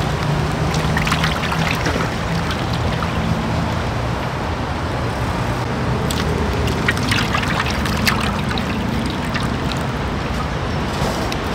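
Cooking oil pouring from slit plastic pouches into an empty steel wok, with the plastic crinkling and a knife slitting the pouches before the oil runs out, over a steady low hum.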